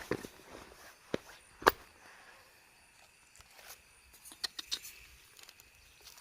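Scattered sharp knocks and rustles: several single hits, the loudest about a second and a half in, and a quick cluster a little past the middle. Under them runs a faint steady high hum.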